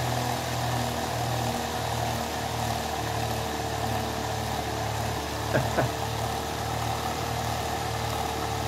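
A small 3 V DC motor spinning the 3D-printed generator's flywheel: a steady hum with a constant whine, the low part pulsing about twice a second. Two brief squeaks come about five and a half seconds in.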